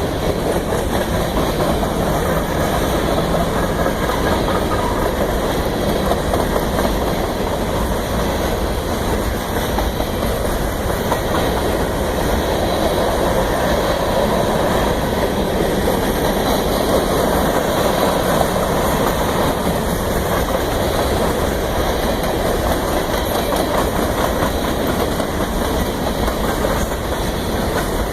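Union Pacific train rolling past, a steady rumble and clatter of wheels and cars on the rails with no horn.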